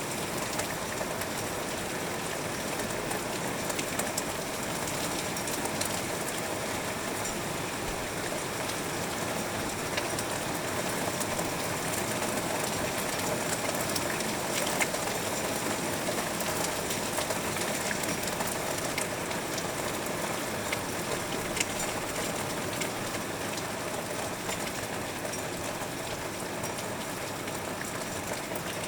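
Heavy rain heard through a window: a steady hiss of rainfall with scattered sharp ticks of drops hitting the glass.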